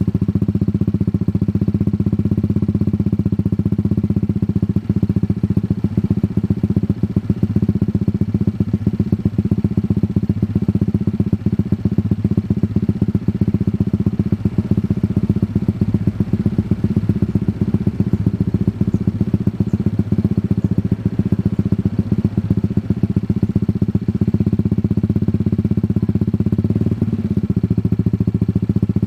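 Motorcycle engine idling steadily through an aftermarket racing exhaust, with a rapid, even exhaust pulse.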